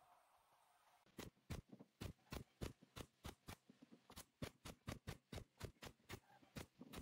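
Nail gun firing nails through a round wooden frame into the board set inside it, about twenty sharp shots at roughly three a second, starting about a second in.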